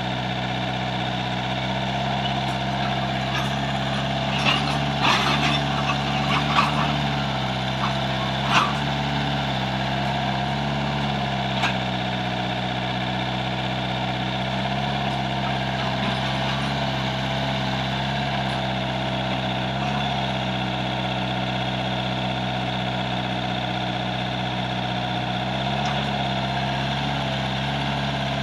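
Mini excavator's diesel engine running steadily as the machine travels on its tracks, with a few sharp knocks between about four and nine seconds in.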